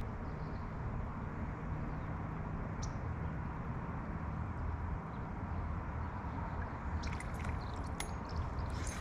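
Steady wind and water noise on the microphone, with a few light clicks and ticks near the end.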